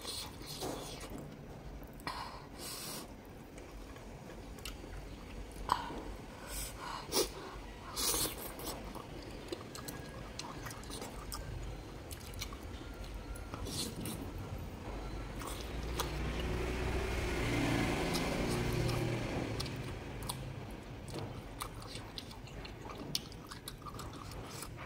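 Close-up sound of a person chewing spicy noodles, with short wet mouth smacks and clicks. Toward the second half a low rumble swells up and fades away again.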